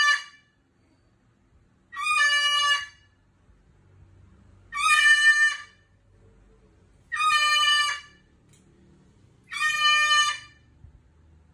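Umbrella cockatoo calling loudly in a regular series: the end of one call at the very start, then four more calls about a second long, one every two and a half seconds.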